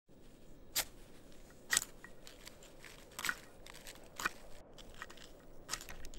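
Small wood kindling fire crackling: five sharp snaps and pops about a second apart, with faint smaller crackles between them.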